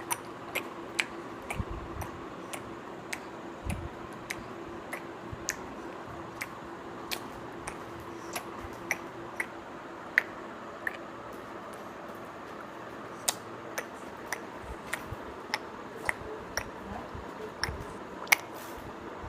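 A five-month-old baby sucking and swallowing milk, making a run of irregular little clicks and squishy mouth noises, roughly one or two a second.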